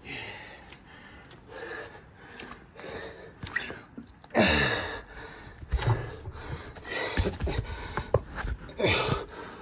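A man panting and gasping hard during burpees, close to the microphone, with a loud grunt about four seconds in and several low thumps in the second half as he drops to the ground and jumps back up.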